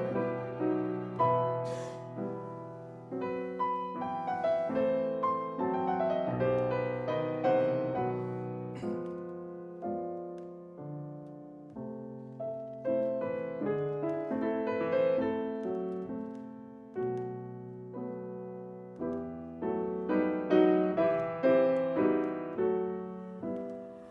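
Solo piano music: a slow melody of single struck notes over held bass notes, each note ringing and fading.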